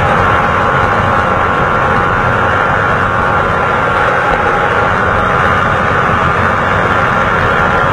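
150 cc single-cylinder motorcycle engine running steadily at cruising speed, mixed with constant wind rush on the microphone of the moving bike.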